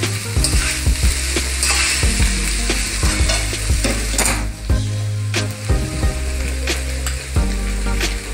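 Metal spatula scraping and clicking against a metal wok while stirring rice into frying vegetables, over a light sizzle from the pan on a low gas flame. The sizzle eases about halfway through. Near the end the spatula scrapes rice off a steel plate into the wok.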